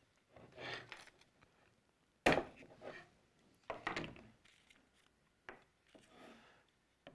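A one-handed bar clamp being released and taken off a guitar neck, with a sharp clack a little over two seconds in, then the wooden pressing block lifted away and a sheet of plastic film rustling as it is peeled back.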